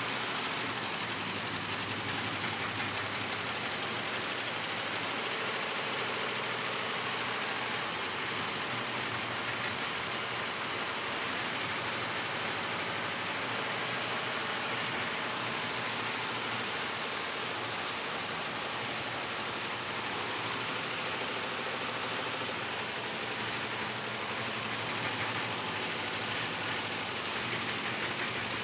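Industrial embroidery machine running steadily, a continuous even mechanical clatter.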